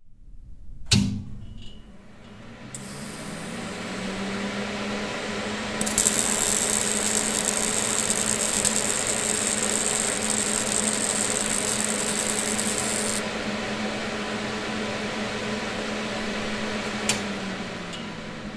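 An electric power tool's motor switched on with a click, spinning up to a steady hum, with a loud hissing for several seconds in the middle. It is switched off with a second click near the end and winds down.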